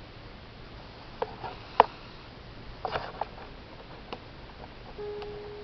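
A few light, sharp clicks and taps from cross-stitch work being handled, scattered across the first four seconds. Near the end, soft background music begins with a held note.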